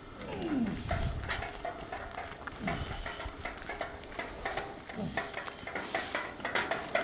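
Loaded strongman superyoke rattling and clinking as it sways with each short step, steel frame and plates knocking together. Short falling groan-like tones come about every two to three seconds over the clatter.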